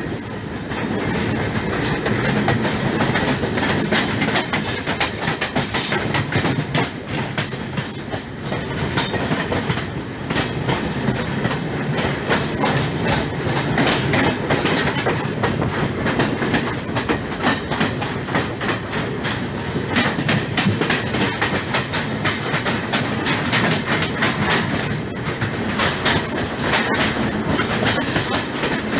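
Passenger train wheels clattering over rail joints at speed, a steady dense rumble with rapid clicks, heard from an open coach doorway while a second express train runs alongside on the next track.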